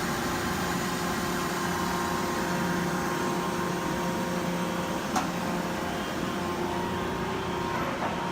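Yama Seiki VMB-1020 vertical machining center running: a steady hum with several constant tones. A single sharp click about five seconds in.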